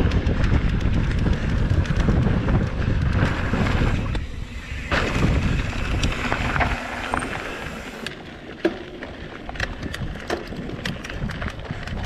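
Wind buffeting the action-camera microphone and tyres rolling over a rough dirt trail as a Canfield Brothers EPO hardtail mountain bike is ridden, with sharp clicks and rattles from the bike. The wind rumble is heavy for the first few seconds, then eases, leaving mostly the rattling.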